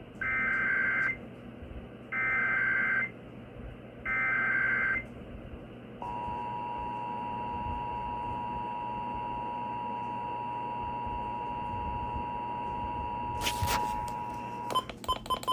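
Emergency Alert System test heard over AM radio: three one-second bursts of SAME header data tones about two seconds apart, then the two-tone EAS attention signal held steady for about nine seconds before cutting off, over a constant static hiss. A few clicks follow near the end.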